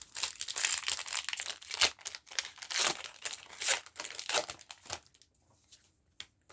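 Foil booster pack wrapper being torn open and crinkled, a dense crackling for about five seconds that then dies down to a few faint rustles.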